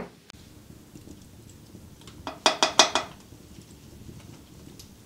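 A spoon clinking against cookware about five times in quick succession, a couple of seconds in.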